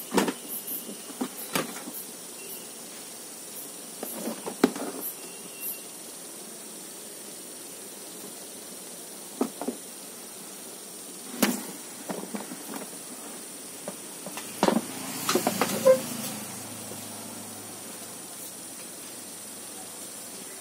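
The opened LED TV's plastic housing being handled and shifted on a workbench: scattered knocks and clunks over a steady background hiss, with a cluster of louder knocks about fifteen seconds in.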